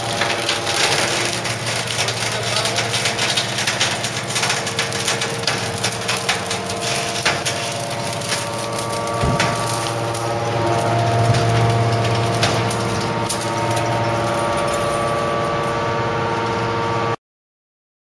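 Hydraulic mattress spring baler running with a steady hum while its ram crushes steel mattress springs, the coils cracking and rattling densely. About nine seconds in comes one sharp knock, then the hum carries on with fewer cracks as the compacted bale is pushed out. The sound cuts off suddenly near the end.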